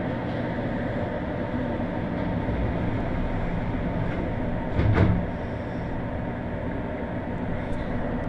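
Steady running hum inside a stopped electric commuter train cabin. There is one loud thump about five seconds in.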